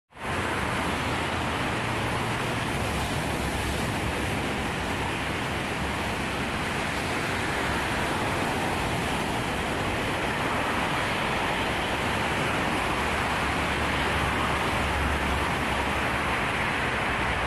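Sea surf breaking on a pebble beach: a steady, loud, rumbling rush of waves that cuts in suddenly out of silence.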